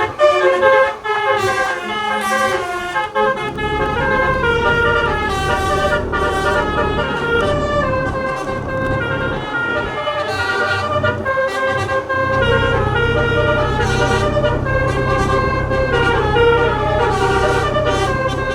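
Basuri (telolet) musical horn playing a fast melody of changing notes. A low engine rumble comes in about three seconds in and continues under it.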